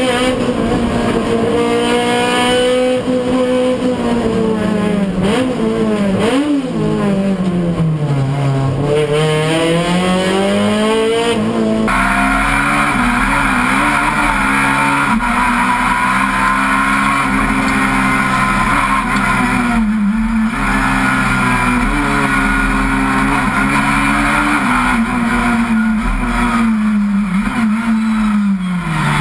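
Racing touring car engine heard from inside the cockpit, revving up and falling back in long sweeps as the driver accelerates, brakes and changes gear. About twelve seconds in the sound changes abruptly to another car's engine at a steadier pitch, with more road and wind hiss, falling off near the end.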